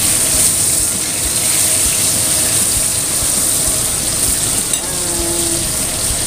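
Breaded chicken deep-frying in hot oil in a wok: a steady sizzle with a constant patter of small crackles.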